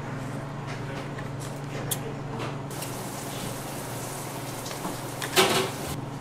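Quiet food-prep handling: a metal knife cutting soft white dough and pieces being set down on a paper sheet, with light rustles, a click about two seconds in and a short, louder scrape of the blade on the paper about five seconds in, over a steady low hum.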